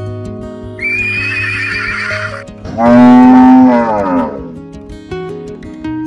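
A horse whinnying in a high, wavering call, then a loud, long moo that falls in pitch at its end, both laid over background guitar music.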